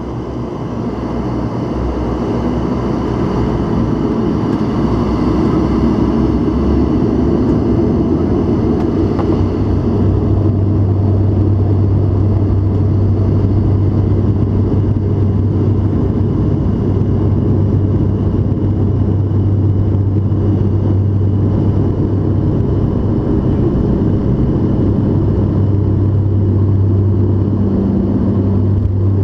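Cabin sound of a De Havilland Canada Dash 8-400 (Q400) turboprop, its engines and propellers droning steadily. About ten seconds in a deep, steady propeller hum grows strong as power comes up for the takeoff roll.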